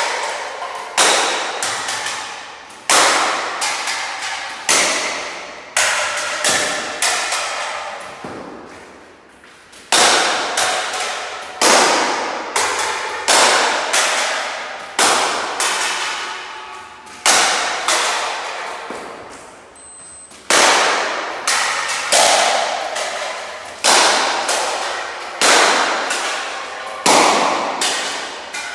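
Slingshot ammo striking metal cans in rapid fire: a sharp clang about once a second, each ringing out and fading before the next hit.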